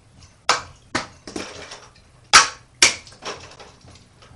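About six sharp cracks and clacks of small toy cars being hit by the spinning ceiling fan's blades and flung against hard surfaces. They come irregularly, the loudest a little after two seconds in.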